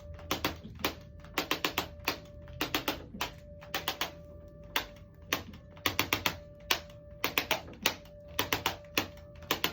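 Impulse electronic chiropractic adjusting instrument firing on the ribs: rapid runs of two to five sharp clicks, a run about once a second.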